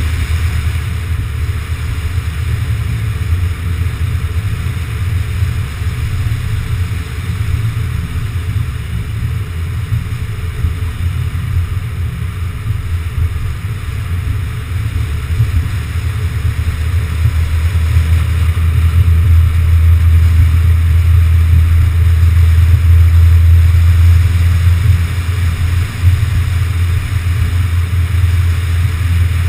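Car driving steadily along a highway, heard as a steady low rumble of wind, tyre and engine noise picked up by a camera mounted on the outside of the car. The rumble grows somewhat louder in the second half.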